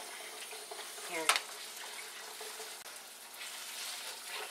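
Marinated chicken pieces sizzling in hot oil in a wok while being stirred with a wooden spatula, a steady frying hiss. About a second in comes a short rising squeak ending in a knock.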